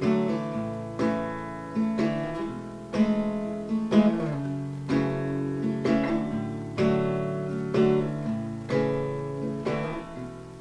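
Acoustic guitar strummed with changing chords, a strong down-strum about once a second with lighter strokes between, and no singing.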